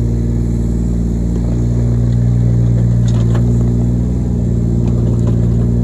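Diesel engine of a Kobelco SK17 mini excavator running steadily at a constant speed, with a few faint clicks over it.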